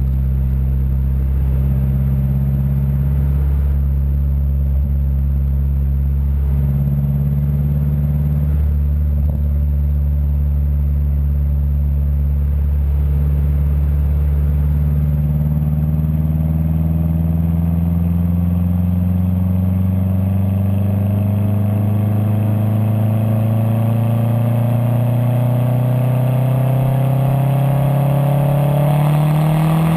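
Exhaust of a Mazdaspeed3 with the resonator deleted, heard right beside the tailpipe while driving: the turbocharged 2.3-litre four-cylinder runs at a steady pitch at first, then about halfway through its note climbs slowly and evenly as the revs rise.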